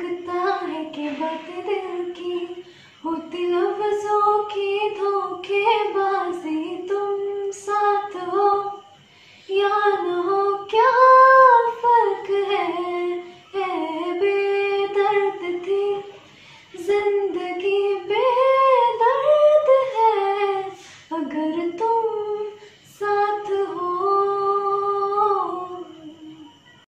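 A young woman singing solo and unaccompanied, in long, bending, held phrases with short breaks for breath. A faint steady high tone runs underneath.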